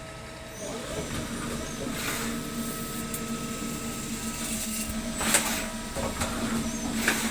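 CNC machine starting to run: its motor sound grows louder about half a second in and settles into a steady hum, with a few short, sharp bursts of noise on top.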